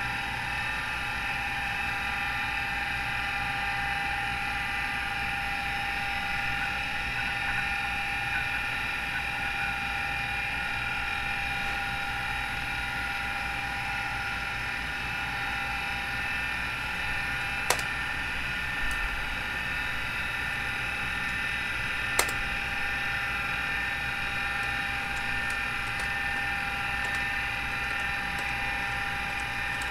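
Miniscribe 2012 MFM hard drive in an IBM 5150 spinning with a steady whine of several tones at once over a low hum, the sound of its noisy spindle bearings. A couple of sharp clicks come in past the middle.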